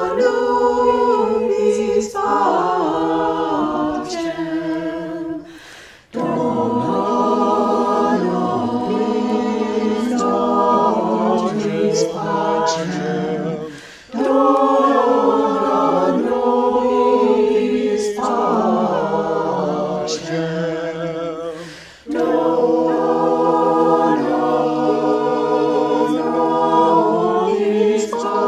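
Small mixed choir of men's and women's voices singing a hymn in harmony, unaccompanied, in long phrases with a short break about every eight seconds.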